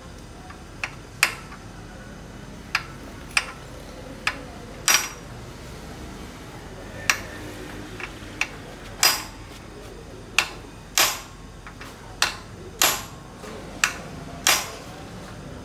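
Hand tools clinking and knocking on metal under a car: about sixteen sharp, uneven strikes, roughly one a second, several ringing briefly.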